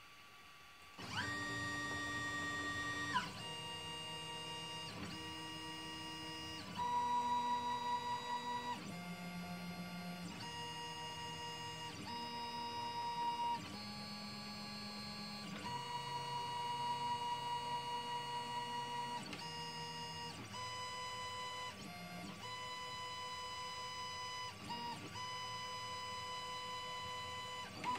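Stepper motors of a small CNC machine whining as the gantry drives a pen along a multi-segment path. They start about a second in with several steady tones at once, and the pitches jump to new notes every second or two as each straight segment is traced.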